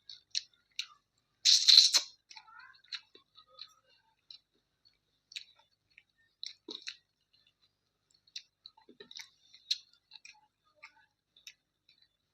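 Close-miked eating of chicken curry with rice: wet chewing, lip smacks and small mouth clicks at an irregular pace, with one louder burst of noise about one and a half seconds in.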